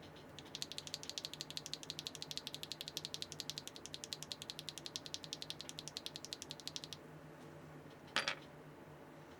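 Neo Ergo mechanical keyboard with HMX Gulf linear switches on a carbon fiber plate and no foam, typed on quickly: a fast, even run of keystroke clacks, roughly a dozen a second, stopping about 7 seconds in. A single louder knock follows a little after 8 seconds.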